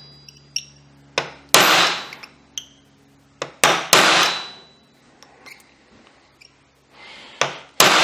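Hammer striking a small pin punch to drive a tight barrel link pin out of a 1911-pattern barrel link: three heavy blows, each just after a lighter tap, every one leaving a short metallic ring. The pin is stuck and resisting the punch.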